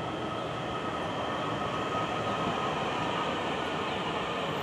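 A DART electric commuter train rolling past the platform: a steady rumble of wheels and running gear, with a faint high whine over it.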